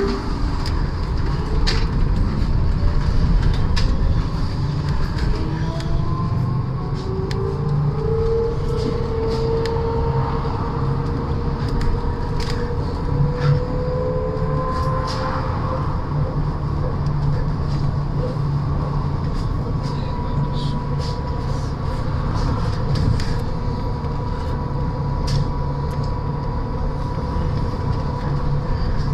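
MAZ-203T70 trolleybus heard from inside the cabin as it pulls away: the electric drive's whine rises in pitch for about the first fifteen seconds, then holds steady while it cruises. Underneath is a steady road rumble, with scattered clicks and rattles from the body.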